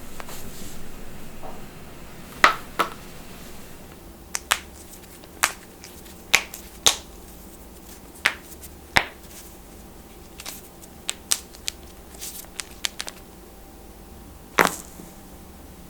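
Human joints cracking: a series of sharp, separate pops, about fifteen, coming singly and in quick pairs at uneven intervals, after a brief rustle at the start.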